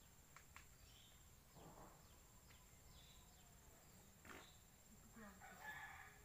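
Near silence: faint outdoor background with a thin steady high-pitched whine, a few soft clicks, faint short chirps, and a faint warbling animal call shortly before the end.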